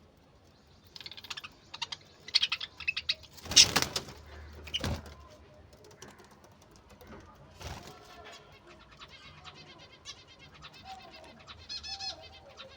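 Budgerigars chirping and chattering in short warbling calls, with a loud rustling burst about three and a half seconds in.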